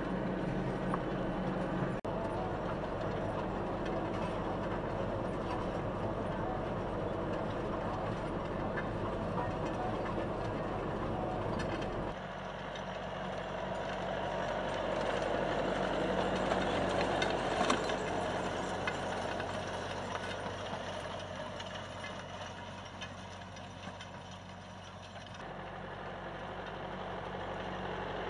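John Deere 6105 RC tractor's 4.5-litre four-cylinder diesel engine running steadily while pulling a seed drill across the field. It is heard first close up from the cab, then from the field, growing louder as the tractor passes about halfway through, fading, and rising again as it approaches near the end.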